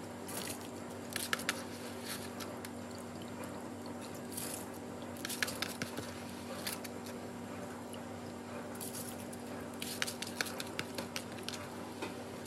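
Handfuls of wet, washed white rice dropped into a saucepan of boiling water: scattered clusters of splashes and wet squishes, over a steady low hum.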